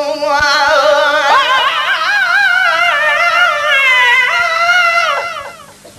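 A voice singing a Sindhi naat, drawing out one long melismatic note with strong vibrato that dies away near the end.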